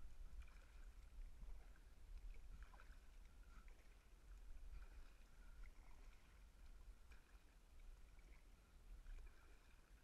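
Faint, muffled kayak paddle strokes dipping into the water, rising and falling with each stroke over a low rumble, heard through a sealed waterproof camera housing.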